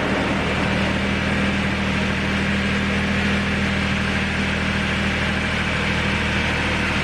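Toyota FJ Cruiser's 4.0-litre V6 idling steadily just after a knock sensor and its wiring were replaced. It runs evenly, with no stumbling.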